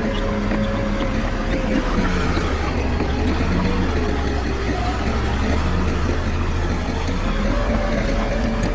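Heavy-machine diesel engine running steadily. Its pitch drops a little about two seconds in and rises again near the end, as engine speed changes under load.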